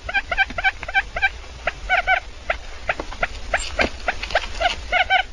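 Quail calling: many short chirping calls, several a second, overlapping as from a group of birds, over a steady low hum.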